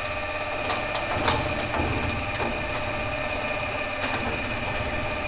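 Electric roller door's motor running, a steady motor hum with a low rumble.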